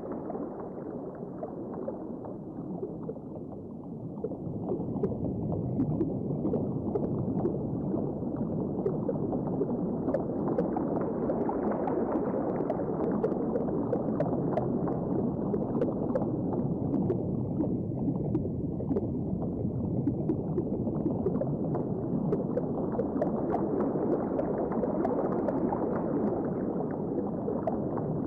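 Underwater ambience of gurgling, bubbling water. It is a steady grainy wash that is a little quieter for the first few seconds, then swells and brightens twice, with faint ticks scattered through it.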